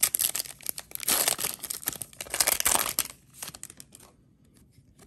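Foil wrapper of a Panini Optic football card pack being torn open and crinkled by hand, in three bursts over the first three seconds that die away about four seconds in.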